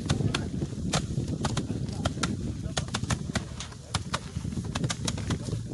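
Many sharp, irregular knocks, several a second, of sticks beating harvested crop in a hand-threshing session, over a low murmur of voices.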